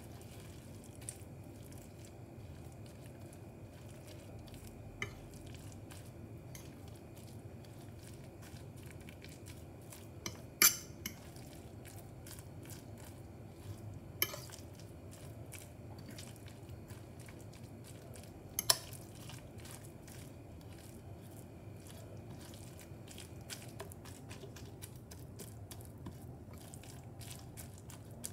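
Metal fork stirring and mashing a wet mixture of shredded meat and egg on a plate: soft, steady squishing, with three sharp clinks of the tines against the plate, the loudest about ten seconds in.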